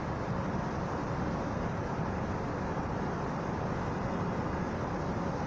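Steady background rumble with no distinct events, of the kind left by distant traffic or wind on an outdoor microphone.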